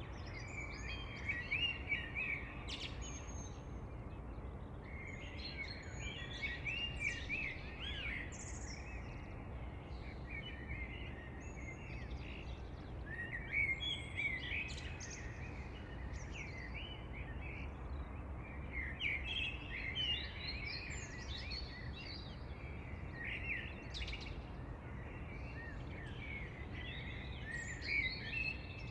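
Birds chirping and singing in repeated flurries of short, quick notes over a steady low background rumble.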